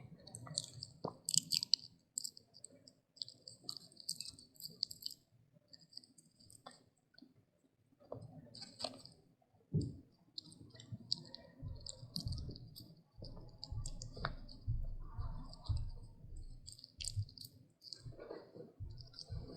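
A puppy chewing and crunching a Pepero-style stick treat for dogs: irregular short crunchy clicks with soft low thuds of its jaws and mouth.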